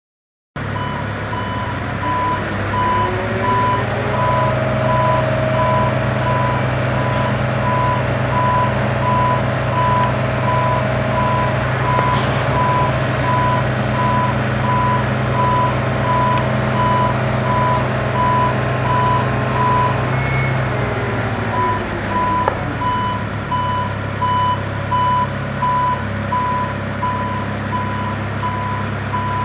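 Nagano Kogyo NUZ090D crawler-mounted articulating boom lift running as the boom moves. Its engine and hydraulics whine, rising at the start, holding steady, then dropping away about 21 seconds in. Its motion warning alarm beeps about twice a second throughout, pausing briefly near the drop.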